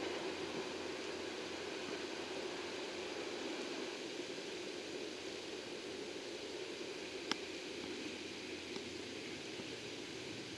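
DD51 twin-engine diesel locomotive running away into the distance, its engine noise a steady rumbling hiss that slowly fades. A single sharp click comes about seven seconds in.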